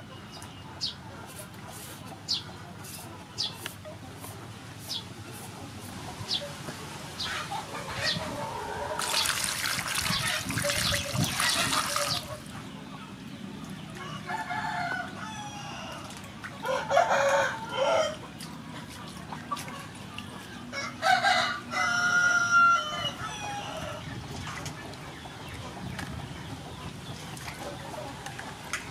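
A rooster crowing three times in the second half, the loudest sound. Before that come quick scraping strokes of a knife peeling a carrot, and a few seconds of water splashing in a steel bowl as a mango is washed.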